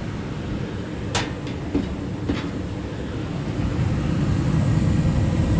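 2012 Bryant Legacy Line gas furnace running: a steady, low rushing noise that grows louder about four seconds in, with a sharp click about a second in.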